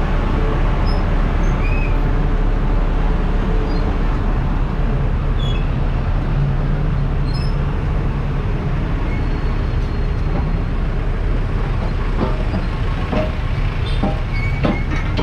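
Steady, loud engine and vehicle rumble as vehicles drive off a docked ferry, with a few knocks near the end.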